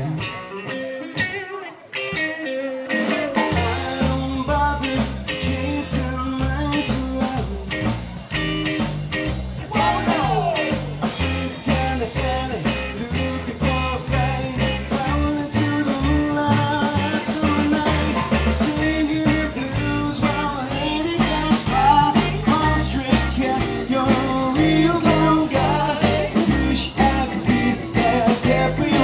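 A live rockabilly band playing an instrumental stretch: a slapped upright double bass walks a steady line under drums and a hollow-body electric guitar. The bass and drums drop out for the first couple of seconds, then the full band comes back in, with vocals returning near the end.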